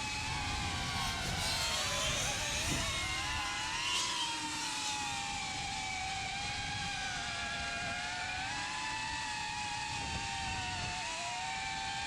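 Brushless motors and propellers of an iFlight Protek35 cinewhoop FPV quadcopter whining in flight. The several close tones rise and fall as the throttle changes, with a brief dip in pitch about two to three seconds in.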